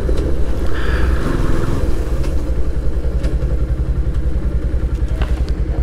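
Yamaha FZS-v3's single-cylinder engine running at low revs as the motorcycle rolls slowly, a steady low pulsing beat.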